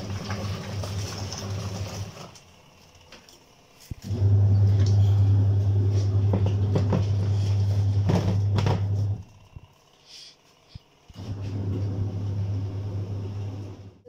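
Mika twin tub washing machine on its wash cycle: the motor hums steadily and the pulsator churns clothes through the water. It stops for a second or two about two seconds in and again about nine seconds in, as the wash action pauses to change direction.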